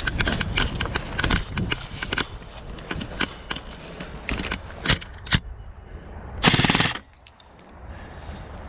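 Airsoft guns firing: scattered sharp shots and short strings of shots, then one loud full-auto burst of about half a second late on, after which it goes quieter.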